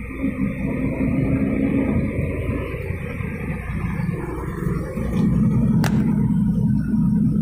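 Road noise of a moving car heard inside the cabin: a steady low rumble of tyres and engine, growing louder about five seconds in, with a single sharp click just after.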